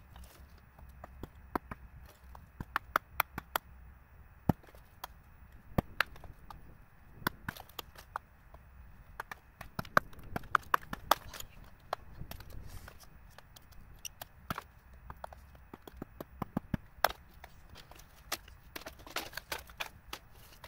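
Irregular sharp knocks and clicks, a few a second and sometimes in quick clusters, over a low steady rumble.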